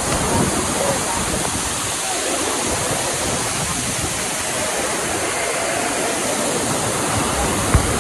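Waterfall: a steady, unbroken rush of falling water, with one brief knock near the end.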